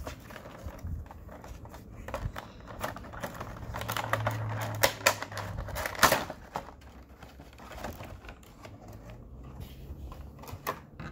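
Cardboard figure box being handled and opened by hand: a run of small clicks, taps and scrapes of the cardboard flap and plastic insert, busiest around the middle, with two sharper taps about five and six seconds in.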